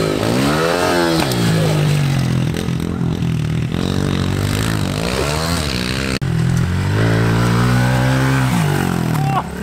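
Pit bike engines revving up and down several times as the bikes ride and jump. About six seconds in the sound breaks off briefly, then a bike runs at steadier revs and picks up again near the end.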